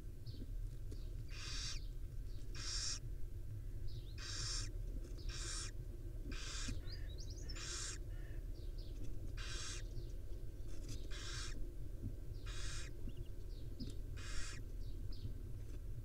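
Barn owls giving a series of about eleven short rasping hiss calls, each under half a second, spaced one to two seconds apart. Faint thin high chirps fall between them.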